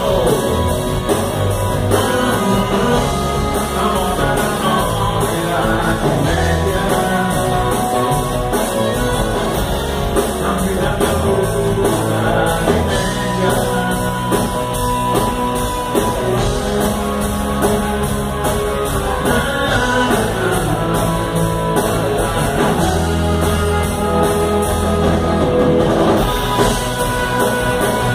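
Live rock band playing a blues-rock number on electric guitars, bass guitar and drum kit, with a saxophone lead.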